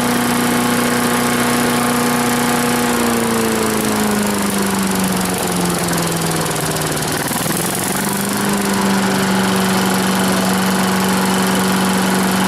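Troy-Bilt wood chipper's 250 cc Briggs & Stratton engine running on a newly fitted carburetor. A few seconds in, its speed slowly sags, then about two-thirds of the way through it picks back up and holds steady at a slightly lower pitch than at first.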